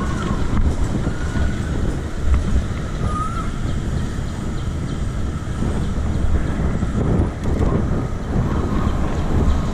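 Wind rumbling on the microphone of a camera on a moving bicycle, with street and vehicle noise underneath.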